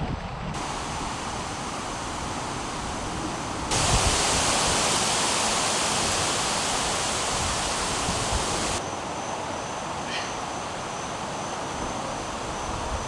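Steady rushing noise of wind blowing through the woods. It grows louder and brighter for about five seconds from roughly four seconds in, then drops back.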